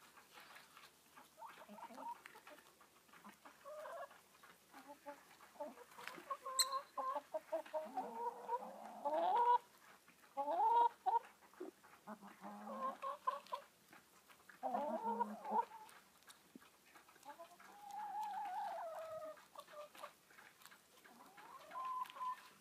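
Backyard hens clucking in scattered short bursts as they forage, with one longer, drawn-out call that falls in pitch about three-quarters of the way through.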